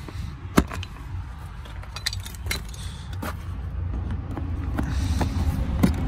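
Plastic interior trim cover being pried off a seat-belt anchor with a pry tool: scattered sharp clicks and snaps of the clips, the loudest about half a second in, over a steady low rumble.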